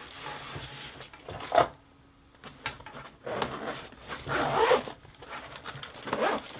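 The zipper of a Cordura nylon pouch being pulled open in several separate pulls, a short one first and longer ones after, with the rustle of the fabric being handled.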